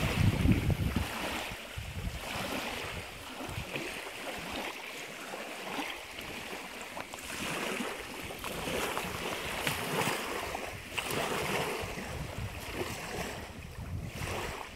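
Small lake waves lapping on a gravel beach, washing in and drawing back in soft surges every second or two. Wind buffets the microphone in the first second.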